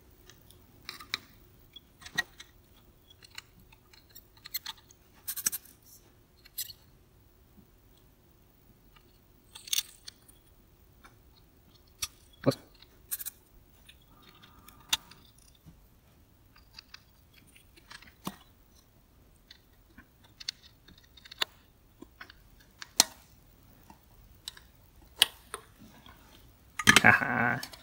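Scattered small clicks, taps and scrapes as a circuit board and a large electrolytic capacitor are handled and the capacitor's solder joints are worked with a soldering iron to free it from the board. A short loud burst of voice comes near the end.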